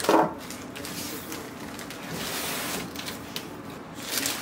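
Handling noise from unpacking a microwave oven: a short sharp sound at the start, then packaging rustling and scraping with small knocks.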